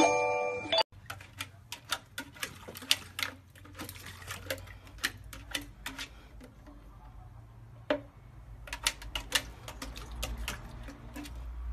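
A short musical chime ends about a second in. Then come irregular light taps and clicks, one to a few a second, as a chocolate Labrador puppy paws and noses at a watering can standing on concrete.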